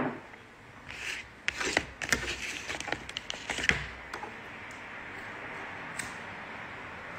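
Handling noise close to the phone's microphone: a run of rubbing, scraping and small knocks between about one and four seconds in, then one sharp click about six seconds in, over faint hiss.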